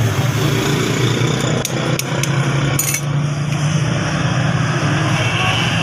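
A few sharp hammer blows on steel during axe forging, heard over a steady low machine hum.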